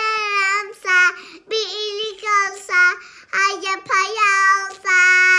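A young girl singing a song in Turkish in a high voice, in several short phrases that each end on a long held note.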